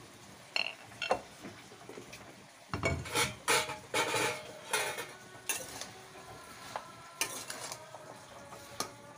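A metal spoon stirring chopped raw apple pieces in a kadhai, with scraping strokes and clinks of metal against the pan. A low bump comes about three seconds in, followed by the busiest run of stirring, and a shorter run comes near the end.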